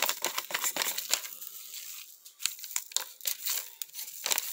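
Paper instant-oatmeal packet being torn open and crinkled by hand: a run of quick crackles and rustles.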